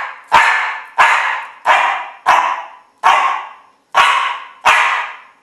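A Coton de Tuléar barking seven times in a steady series, about one bark every two-thirds of a second, counting out an answer in a trained counting trick.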